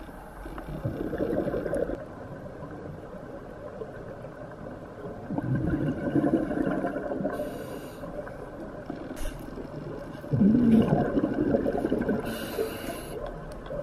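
Scuba diver breathing through a regulator, heard underwater: three exhalations come out as rumbling, gurgling bubble bursts about four seconds apart, the later ones each followed by a short hiss of inhalation through the regulator.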